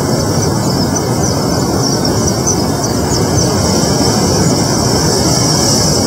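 Steady, loud rushing outdoor noise with a constant high hiss above it, unchanging and with no distinct knocks or calls.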